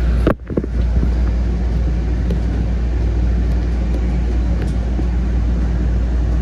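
Steady low hum inside a stopped MBTA Green Line light-rail car, its onboard equipment running. The sound briefly cuts out about a third of a second in.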